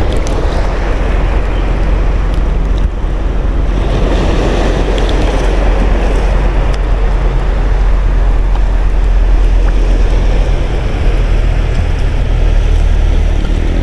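Steady wind noise rumbling on the microphone, with small waves lapping in shallow sea water.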